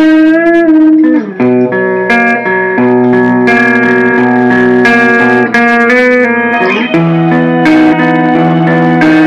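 Live instrumental band: electric guitars ringing in sustained notes and chords, sliding in pitch about a second in and again near seven seconds, with a few cymbal hits from the drum kit.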